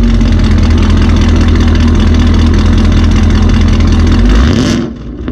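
2018 Camaro ZL1's supercharged 6.2-litre LT4 V8, running through Kooks headers and a non-standard exhaust, held at steady high revs and very loud at the tailpipes, then dropping back near the end. It measures 127 decibels, deafening and well over a 103 dB track-day limit.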